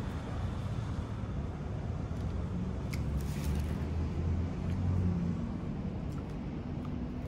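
Low, steady rumble of road traffic, with a vehicle engine's hum swelling about three to five seconds in.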